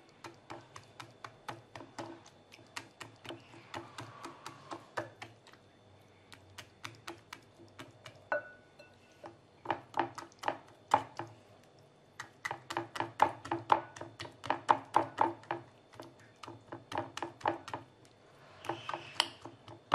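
A fork jabbing repeatedly into raw chicken drumsticks in a ceramic bowl, the tines clicking against the bowl in runs of about three strikes a second with short pauses between. The meat is being pricked so the marinade will soak in.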